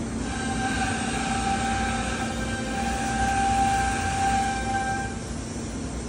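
Gold Star StarPro AG 510 CNC router in operation: a steady pitched whine starts just after the beginning and stops about five seconds in, over a constant machine drone and hum.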